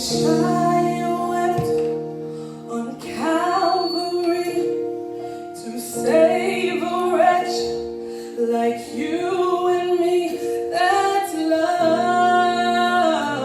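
Choir singing a slow gospel worship song, female voices to the fore, in phrases over steady sustained instrumental chords.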